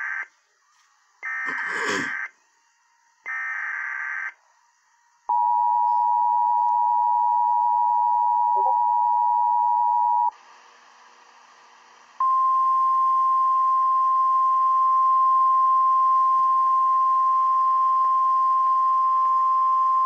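Emergency Alert System tones played from a laptop: the end of one SAME header data burst and two more, each about a second long, then the two-tone attention signal held for about five seconds. After a brief drop to faint hiss, a single steady 1050 Hz weather-radio tone runs for about nine seconds and cuts off near the end.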